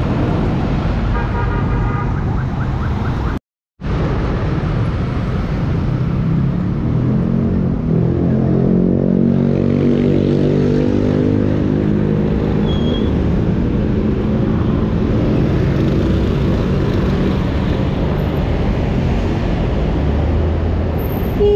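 Motorcycle engine running while riding in city traffic, its pitch rising and falling with the throttle, over steady road and wind noise. In the first few seconds there is only general street traffic, then a sudden half-second dropout of all sound.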